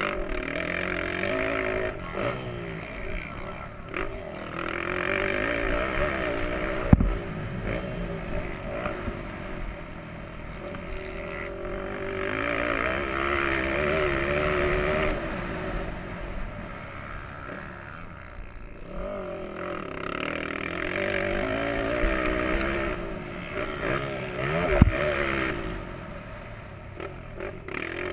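Motocross bike engine heard on board, revving up and falling back again and again as the rider opens and closes the throttle around the dirt track. Two sharp knocks stand out, one about a quarter of the way in and one near the end.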